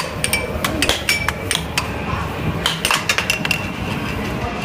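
An irregular run of sharp metallic clinks and clatter, several a second, thinning out in the last second or so, over steady background crowd noise.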